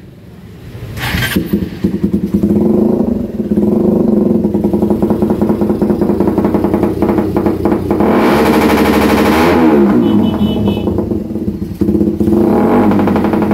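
Suzuki Raider 150 carb's single-cylinder four-stroke engine running through an open exhaust with the silencer removed. Its sound drops away at the start, then comes back about a second in with a sharp bang from the pipe: the backfire the interrupter relay is fitted to produce when the ignition is cut and restored. It is revved up and falls back about eight seconds in.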